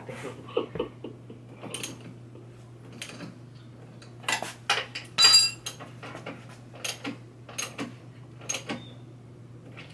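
Hand tool clicking and clinking against metal as a scooter's swing-arm bolts are tightened: scattered light clicks, with a louder run of ringing metallic clinks about four to five seconds in.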